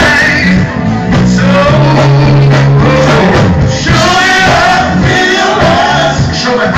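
Live blues band playing, with a voice singing over steady low bass notes.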